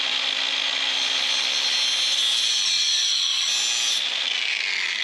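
Handheld power tool running continuously as it cuts something off, its motor pitch sagging under load a couple of seconds in and the whine slowly falling near the end.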